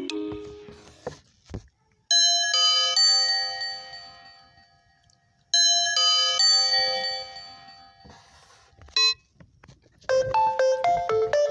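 Lenovo A5 smartphone alarm tones played through the phone's speaker: a bell-like doorbell chime sounds twice, about three and a half seconds apart, each strike ringing out and fading over about three seconds. Near the end a different tone begins, a quick melodic jingle of short bright notes.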